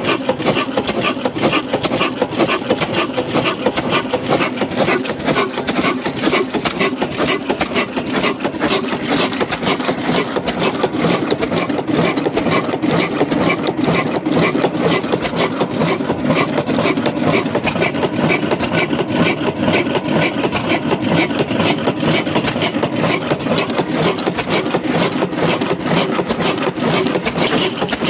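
Old 20 HP stationary diesel engine running steadily, with a fast, even mechanical clatter from its moving parts.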